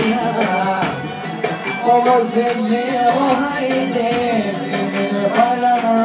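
Albanian folk-pop song with a steady beat and a man singing an ornamented melody into a microphone.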